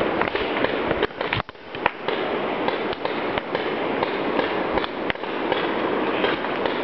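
Dense, continuous crackling rustle with many scattered sharp clicks: handling noise on the camera's microphone.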